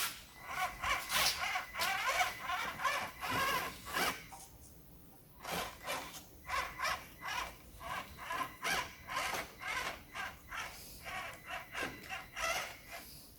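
Small electric motor and gear train of a micro RC rock crawler whining in short bursts, the pitch wavering as the throttle is worked, with a quieter pause about four seconds in.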